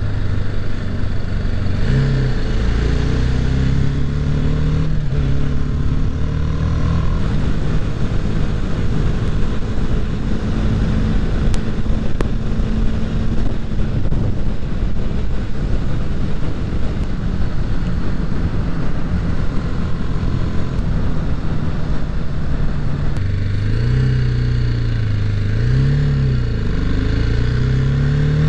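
Motorcycle engine running while riding, heard from the bike over steady wind noise. The engine pitch holds steady through most of the stretch, then rises and dips a few times near the end as the throttle opens and closes.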